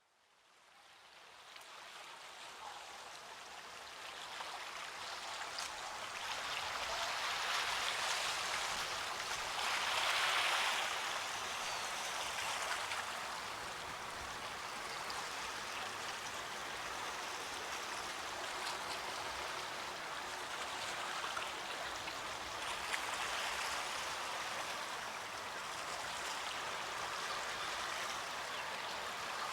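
Running water of a stream, a steady rushing hiss that fades in from silence over the first few seconds and swells briefly about ten seconds in.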